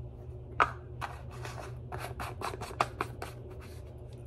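Small jar of cayenne pepper being shaken over a bowl: a quick run of short shakes, about five a second, after a single sharper click near the start.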